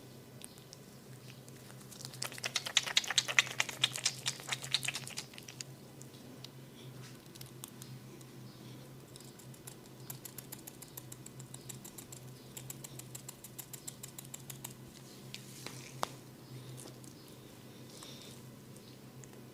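Hands massaging an oiled scalp: fast rapid clicking from fingers scratching and tapping through the hair, loudest for about three seconds near the start, then fainter runs of ticking. One single sharp click comes near the end.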